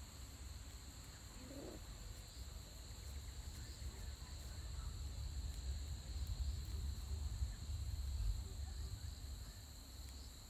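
Steady, high-pitched chorus of insects buzzing outdoors, with a low rumble on the microphone that grows louder in the second half.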